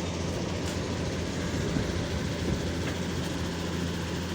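Hitachi excavator's diesel engine running steadily with a low hum, with a couple of brief knocks near the middle.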